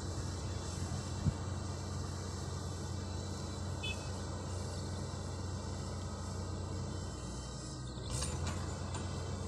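Distant Shantui excavator's diesel engine running steadily, a low hum, with one sharp knock about a second in and a brief louder moment near the end.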